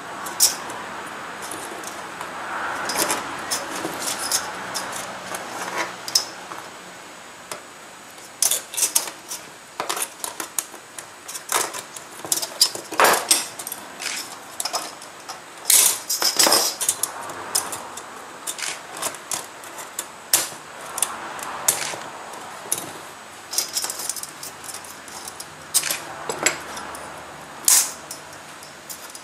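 Thin metal strips clinking, scraping and clicking irregularly as they are pressed and fitted into a batik stamp block's metal frame with a pointed hand tool.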